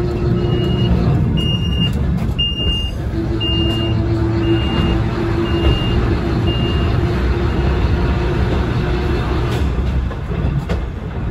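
Volk's Electric Railway car running with a steady low hum and rumble. A warning beeper sounds short, even, high beeps a little more than once a second, loudest about two and a half seconds in and fading out by about seven seconds in.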